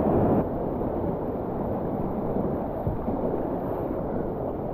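River rapids rushing as a steady noise, stepping down a little about half a second in.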